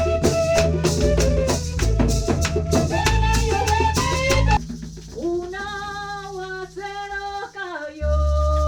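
Music with a busy percussion beat of shakers and drums over a heavy bass. About halfway through the beat drops out, leaving a lone, sliding melody line, and the bass and beat come back in near the end.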